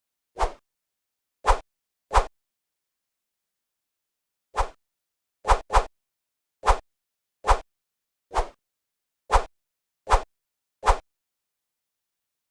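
Kung fu fight punch sound effects: twelve short, sharp hits with a low thud under each, separated by silence and spaced irregularly about a second apart, two of them in quick succession about five and a half seconds in.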